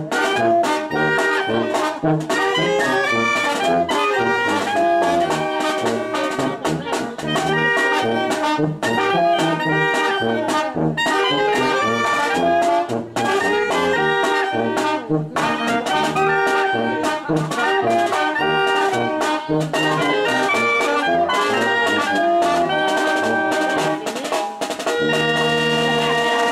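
Mexican village brass band (banda de viento) playing live: trumpets, trombones, saxophone and sousaphone over a bass drum and snare drum keeping a steady beat. Near the end the band holds a long chord.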